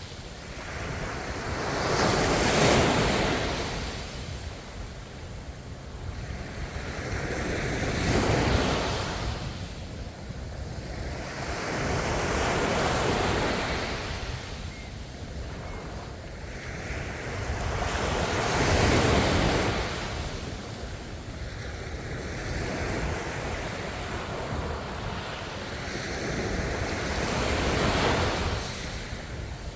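Ocean waves breaking and washing on the shore, swelling and falling back about every five or six seconds, with five surges in turn and a steady hiss of surf between them.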